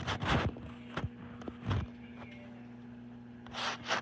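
Microwave oven running with a steady low hum, while bacon cooks inside. A few short dull thumps or breaths come over it in the first two seconds, and another short burst near the end.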